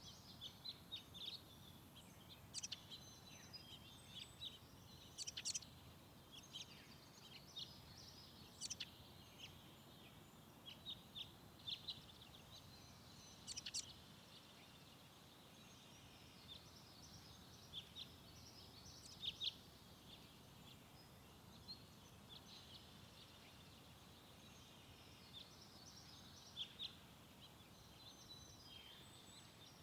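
Small birds chirping, many short high calls scattered throughout over a faint steady hiss.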